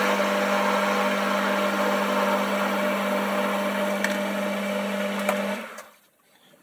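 Boxford metal lathe running with a steady hum and hiss while a parting-off tool cuts through a spinning metal bar. The sound stops about five and a half seconds in as the lathe comes to rest.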